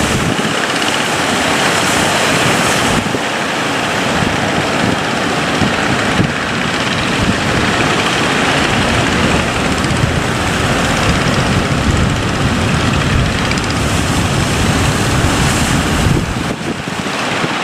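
Boat engine running under steady rushing noise from wind buffeting the microphone and water moving past the hull.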